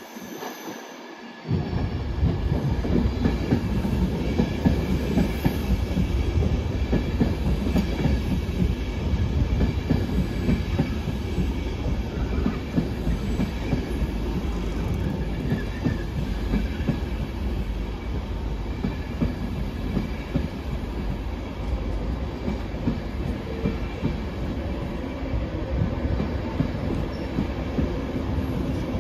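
LNER InterCity 225 train, led by its driving van trailer, with its Mk4 coaches rolling past close by and the wheels rumbling over the rails. The noise jumps up suddenly about a second and a half in, then stays steady.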